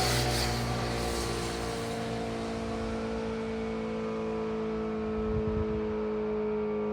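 Electric motor siren sounding a long, steady wail, several pitches held level together without rising or falling.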